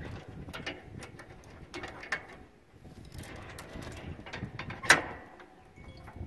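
Trailer safety chains and steel hitch hardware clinking and rattling as a trailer is hitched to a truck's ball hitch, with a sharp metal clack about five seconds in.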